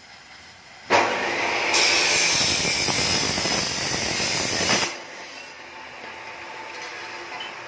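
Electric arc welding on a perforated steel exhaust filter tube: the arc strikes suddenly about a second in and crackles loudly for about four seconds, then stops.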